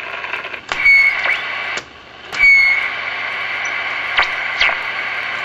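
A 1941 Zenith 6S527 shortwave tube radio hissing with static between stations while its push-buttons are pressed. There are several sharp clicks, and after two of them a high steady whistle comes in and holds for the second half. A faint low hum runs underneath.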